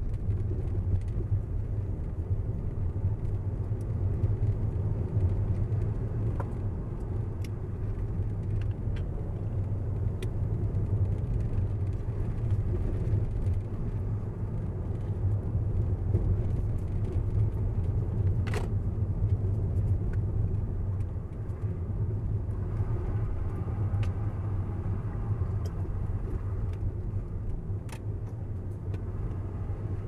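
Car driving along a road: a steady low rumble of tyres and engine, with a few faint clicks.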